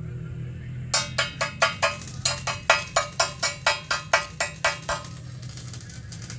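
Rapid, even hammer blows on metal, about four or five a second, starting about a second in and stopping about five seconds in, over a steady low hum.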